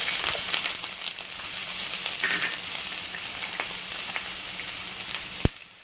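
Chopped onion sizzling steadily in hot coconut oil with spluttered mustard seeds in a pan, with small crackles through the hiss. A single sharp click near the end, after which the sizzle drops away.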